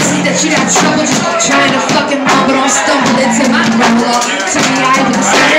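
Hip-hop beat with a steady bassline, and a man rapping over it into a microphone.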